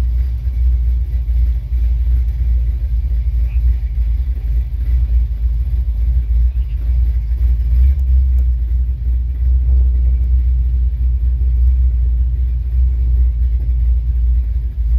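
1967 Dodge Coronet station wagon's engine running steadily as the car crawls along, a deep even low sound heard from inside the car.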